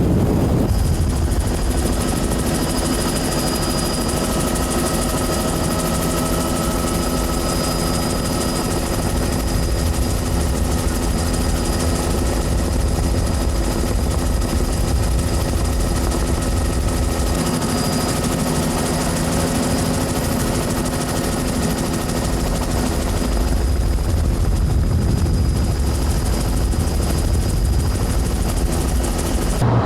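Helicopter running steadily: a constant low drone with a steady engine whine.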